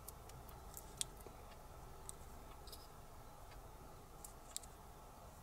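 Faint scattered clicks and scratches of a fingernail picking at and peeling a small black sticker off the plastic wrap of an 18650 lithium-ion cell, with sharper clicks about a second in and again near the end.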